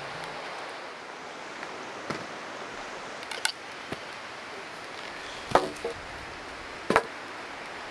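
Irregular sharp knocks and clacks, about half a dozen and the loudest about five and a half and seven seconds in, over a steady background hiss.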